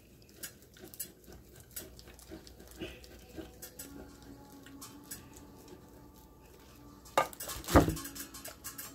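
Kitchen utensils and dishes clinking and scraping lightly while a casserole is being topped, with two louder knocks near the end.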